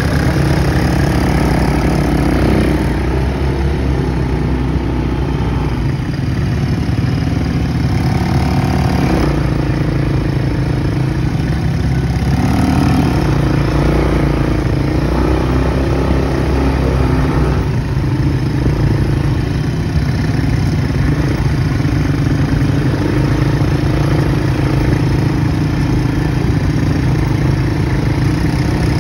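Quad bike (ATV) engines running as the riders move along in a line over sand, the nearest engine loud and steady, its pitch shifting a few times with the throttle.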